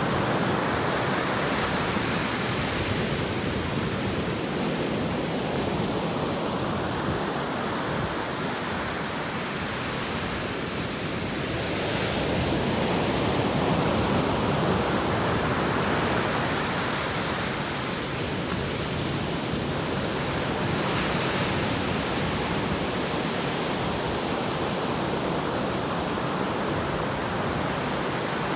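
Atlantic Ocean surf: waves breaking and washing in a continuous rush, swelling and easing every several seconds, loudest about halfway through.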